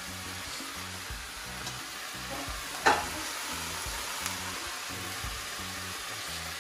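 Pre-cooked rice, vegetables and sauces sizzling steadily in a hot oiled pan, with one sharp knock about three seconds in.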